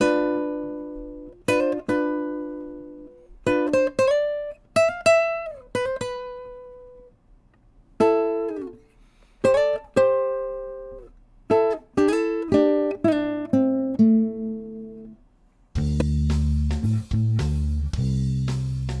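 Instrumental music: a guitar plays single plucked notes and chords that ring out, some sliding in pitch. Near the end a fuller accompaniment with a low bass line comes in.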